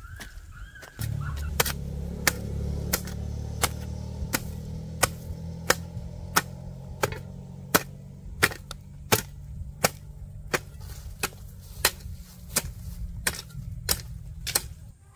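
Rhythmic chopping, a sharp knock about every 0.7 seconds like a knife or cleaver striking a wooden cutting board. A steady low rumble starts about a second in.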